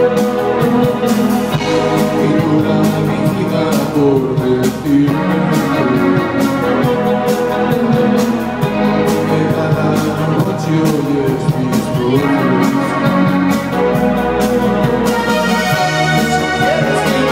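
Live band playing through a PA: electric guitar, organ-like keyboards and a steady drum beat, with a singer's voice over them.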